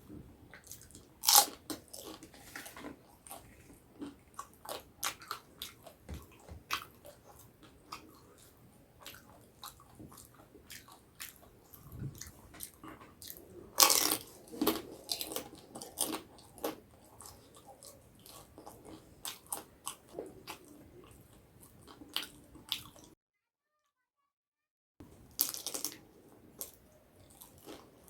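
Close-up eating sounds: crisp bites crunching and steady chewing of Indian street snacks such as pani puri, with two loud crunching bites, one about a second in and one about halfway. The sound cuts out completely for about two seconds near the end.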